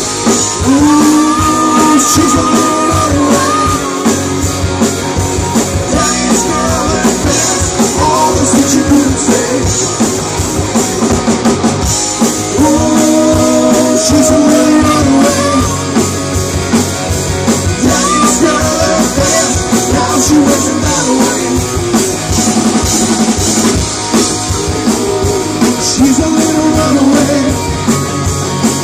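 Live rock band playing loud: electric guitars, bass guitar and drum kit, with a singer's held lines coming back in a repeating phrase.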